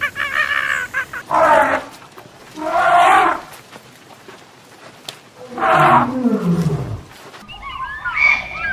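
Animal calls: a run of quick honk-like calls, then three long pitched cries, the last one sliding down low in pitch. Birds start chirping near the end.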